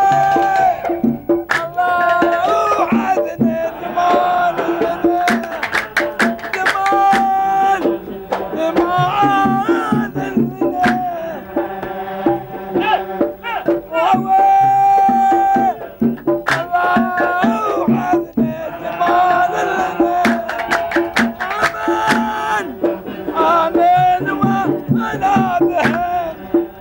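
Background music: a held, wavering melody over steady hand-drum percussion.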